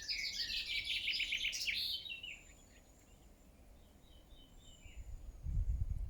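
Songbird singing a rapid, chirping phrase in the first two seconds, followed by fainter chirps and a thin high whistle. A low rumble swells near the end.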